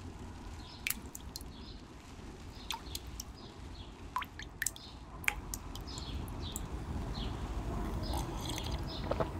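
Water dripping: single sharp drops plink one at a time, about nine of them with irregular gaps. Faint bird chirping sounds behind them.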